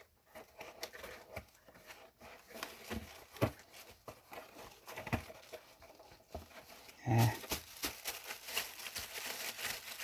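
Model parts and packaging being handled by hand: scattered small clicks, knocks and rustles, with one louder dull thump about seven seconds in.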